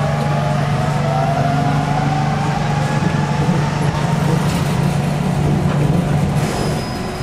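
Tokyo Metropolitan Bureau of Transportation 300-series automated guideway train running on rubber tyres: a steady low drive hum with a motor whine that rises slowly in pitch as it gathers speed. Near the end the hum eases and the sound drops a little.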